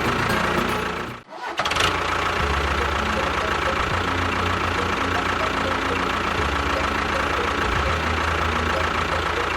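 Small motor of a DIY model construction machine running steadily. It cuts out briefly about a second in, then carries on.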